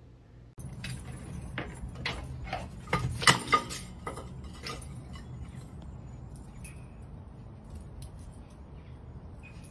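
Hard knocks and clatter on paving stones, loudest about three seconds in, then lighter ticking over a steady outdoor hiss.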